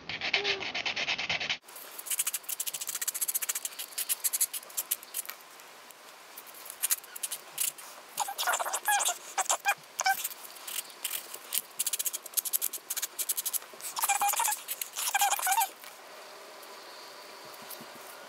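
Mini 4-way nail buffer block rubbed back and forth over a fingernail in bursts of quick scratchy strokes with short pauses, smoothing down a Crazy Glue nail patch.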